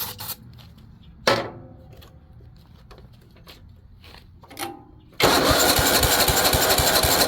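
A Tecumseh OHV130 single-cylinder engine on a riding mower is cranked by its electric starter from about five seconds in. It turns over with an even chug of about six beats a second and does not fire, which the mechanic takes for a no-spark condition. A short metallic clank comes about a second in.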